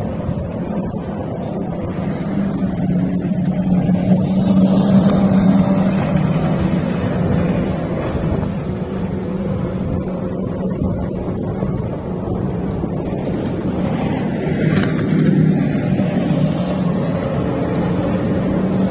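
Power boat engine running steadily with a low, even drone that swells a little twice.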